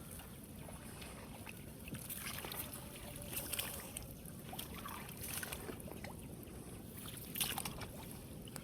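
Water splashing and sloshing in brief bursts every couple of seconds over a steady low rumble of wind on the microphone.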